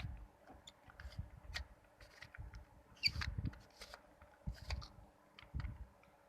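3x3 Rubik's cube being turned by hand: faint, irregular clicks of its plastic layers rotating, with soft handling thumps and a busier cluster of turns about three seconds in.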